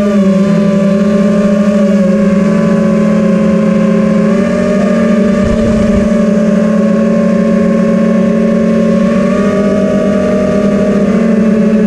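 FPV quadcopter's motors and propellers whining in a steady buzz as it flies low and fast, the pitch shifting slightly with the throttle. A brief low rumble comes about halfway through.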